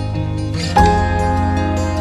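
Instrumental background music with sustained notes, a new chord coming in a little under a second in.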